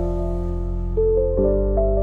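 Slow, calm instrumental meditation music: soft piano or keyboard notes held over a sustained low bass, with a new chord coming in about a second and a half in.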